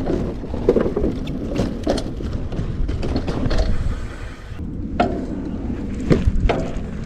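Wind buffeting the microphone in a steady low rumble, with scattered knocks and clicks, the sharpest about five and six seconds in.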